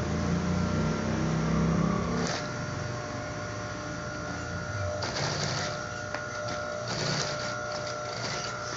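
Industrial sewing machine stitching through thick PVC tarpaulin for about two seconds, then its motor humming steadily while the stiff sheet is shifted by hand, rustling a few times.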